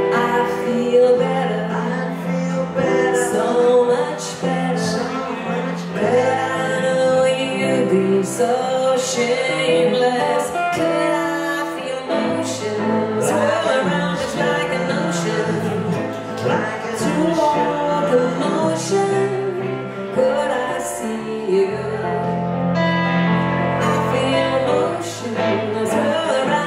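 Live band song: a hollow-body electric guitar and a stage keyboard playing, with a woman singing and a man's voice also heard.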